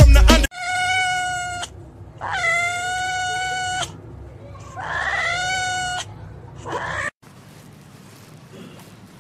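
A cat meowing: four drawn-out meows, each held at a steady pitch, the third sliding up into its note and the last one short and rising.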